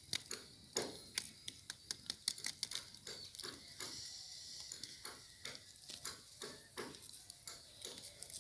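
Irregular sharp clicks and taps, about two or three a second, from a small wood fire crackling as sticks prod the embers under a wire grill where nopales are roasting.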